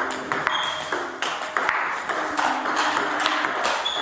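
Table tennis rally: the ball clicking sharply off the bats and bouncing on the table in a quick, irregular series of hits, one bat faced with long-pimpled rubber used for blocking and chop-blocking.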